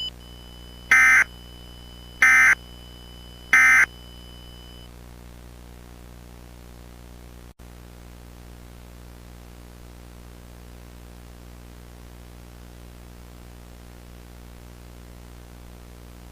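Three short bursts of EAS SAME digital data, the End of Message signal that closes the emergency alert. Each lasts about a quarter of a second, spaced a little over a second apart. A faint steady high tone under them stops about five seconds in, leaving a low steady hum and hiss.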